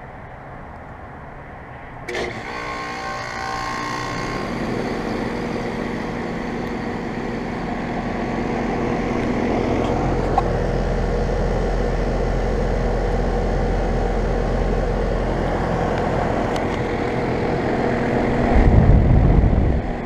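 Lennox Merit Series 3-ton heat pump's outdoor unit in a defrost cycle: a sudden whoosh about two seconds in, then a steady machine hum that builds over several seconds and holds. A loud low rumble near the end.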